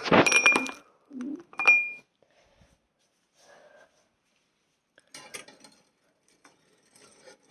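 A metal knife clatters and clinks twice against hard kitchenware, each clink with a brief bright ring, about a second and a half apart. Faint scraping and rattling follow near the end.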